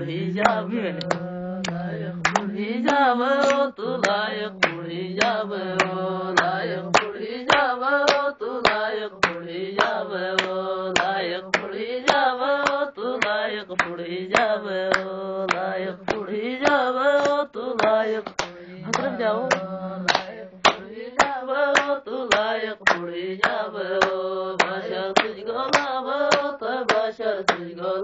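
Voices singing a folk dance song, accompanied by steady handclaps that keep time at about two claps a second.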